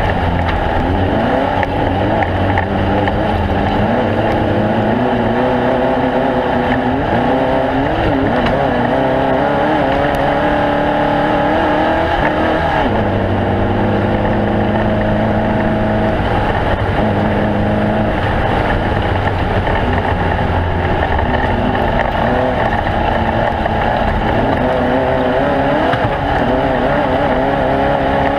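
Engines of several off-road race vehicles running hard at once. Their pitches rise and fall as they accelerate and shift, and a steadier engine note holds for a few seconds about halfway through.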